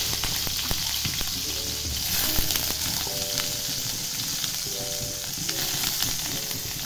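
Small dried anchovies (teri) frying in hot oil in a pan: a steady sizzle dotted with small crackles and pops.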